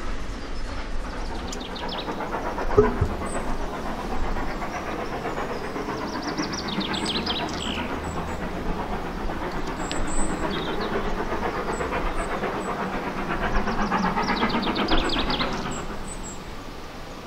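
Steam train running on the line, a steady rumble that swells twice and dies away about a second before the end, with birds chirping faintly.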